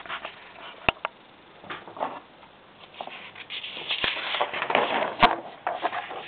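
Paper pages of a ring binder being handled and turned, rustling, with a few sharp clicks. The loudest click comes about five seconds in.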